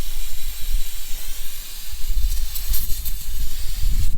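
Steady hiss of a water spray rinsing dirt and grime down to the bottom of an engine part, cutting off suddenly at the end.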